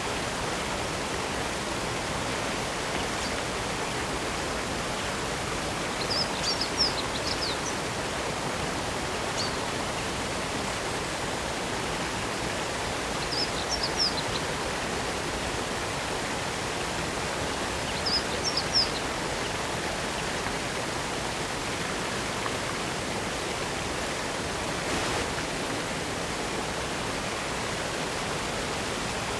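Waterfall of spring water splashing with a steady rush. A bird gives short high chirps four times.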